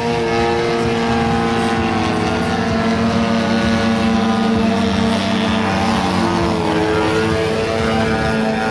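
Two-stroke gasoline engine and propeller of a giant-scale radio-controlled Ultimate biplane, a Desert Aircraft DA-85, running steadily in flight. Its pitch sags slightly a couple of times as the throttle eases.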